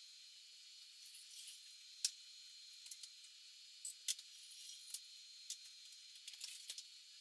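Faint outdoor ambience: a steady high-pitched hiss with a thin whine, broken by scattered sharp clicks and ticks, the loudest about two seconds in.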